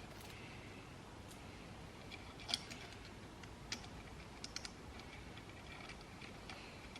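A few light metallic clicks and taps of small parts and hand tools being handled while clutch spring bolts are fitted, the sharpest about two and a half seconds in and a quick cluster a couple of seconds later.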